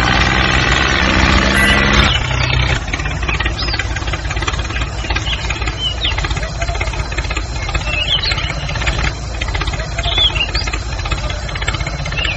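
Music for about the first two seconds, then a tractor-style engine chugging steadily at idle, low and fast-pulsing.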